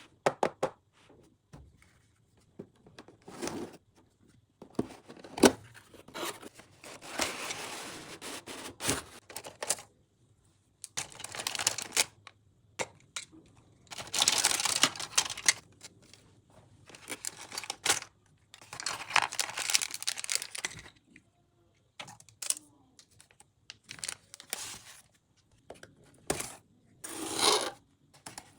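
Toy packaging being unboxed by hand: plastic and tape tearing and crinkling in irregular bursts of a second or two, with sharp clicks and taps between them and short quiet pauses.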